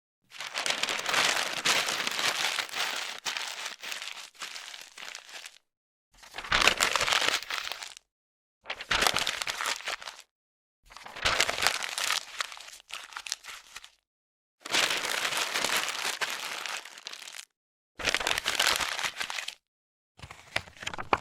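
Paper rustling and crinkling, crisp and crackly, in a string of about seven separate takes, each lasting one and a half to five seconds, with short gaps of dead silence between them.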